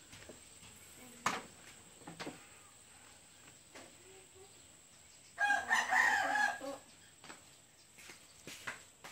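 A rooster crowing once, a single call of about a second and a half, around the middle. A sharp click a little over a second in; otherwise low background.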